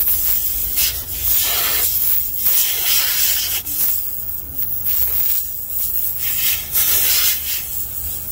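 Air hissing out of a nail puncture in a car tyre's tread, coming and going as a T-handle reamer is probed into the hole, with gloved hands and the tool rubbing and scraping against the rubber.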